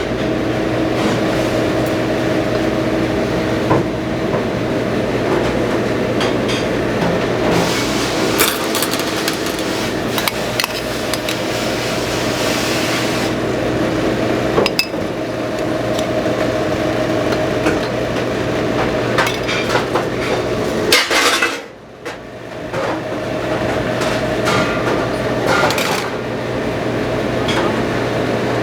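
Metal utensils and cookware clinking and knocking now and then over a steady machine hum, with a brief drop in loudness a little past two-thirds of the way through.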